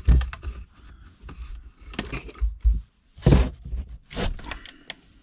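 Handling noise of electrical wire being pushed and pulled through a bedside table's fitting: irregular scrapes and knocks, with a sharp knock at the start and the loudest scrape a little past halfway.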